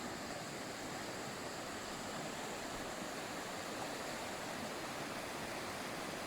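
Steady rush of water at the Jagala waterfall: an even, unbroken noise with no distinct events.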